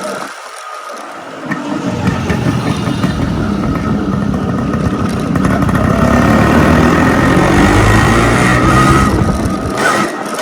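Modified Yamaha RX135 motorcycle's two-stroke single-cylinder engine under way, with an aftermarket muffler. It pulls harder from about two seconds in, is loudest past the middle, and eases off near the end.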